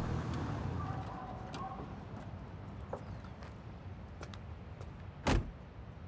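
A Jeep door shut with a single heavy slam about five seconds in, after a few small clicks as it is opened and someone climbs out.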